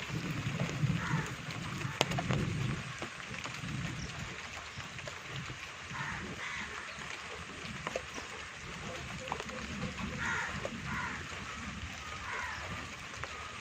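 Steady rain falling, with scattered sharp drips.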